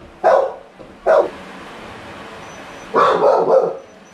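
Dog barking in short sharp barks: two barks, a pause of nearly two seconds, then a quick run of two or three more.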